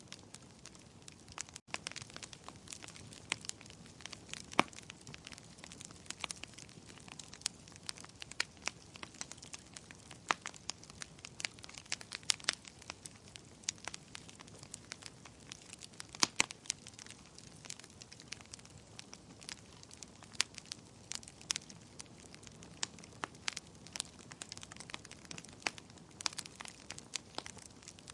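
Wood fire crackling: frequent irregular pops and snaps over a soft steady hiss, with a few louder pops here and there.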